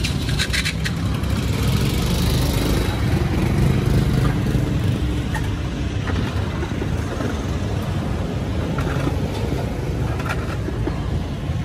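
Street traffic: a steady rumble of passing cars and motorbikes, with a few sharp clicks in the first second.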